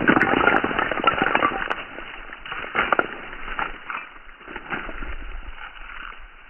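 A sudden blast as brick fragments burst apart, followed by dense crackling and clattering that slowly fades away over several seconds.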